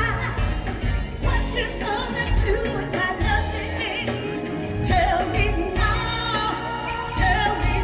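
Live R&B band playing, with a woman singing lead over electric guitar and drums in long, gliding sung lines.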